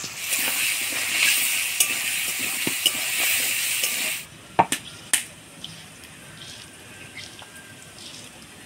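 Potato cubes sizzling in hot oil in an aluminium kadai, with the clicks and scrapes of a spatula stirring them. The sizzle cuts off suddenly about four seconds in, and two sharp knocks follow about half a second apart.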